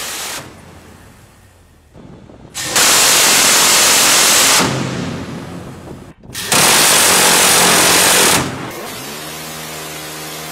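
Phalanx close-in weapon system's 20mm M61 Vulcan rotary cannon firing two sustained bursts of about two seconds each, the shots merging into one continuous tearing buzz, a few seconds apart. Near the end a quieter, steady hum with a clear pitch follows.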